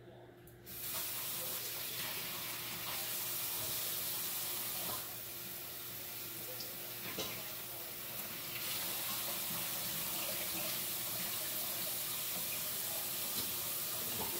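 Kitchen faucet turned on about a second in and running steadily into the sink, rinsing cooked spaghetti in a strainer. The water sound dulls and softens for a few seconds in the middle, then comes back fuller.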